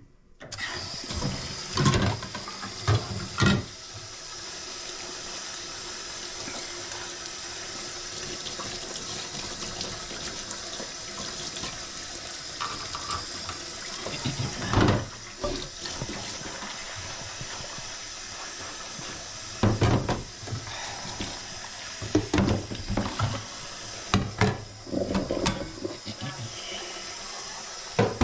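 Kitchen tap turned on just as it starts, water running steadily into a sink during washing up, with occasional knocks and clatters of things handled in the sink.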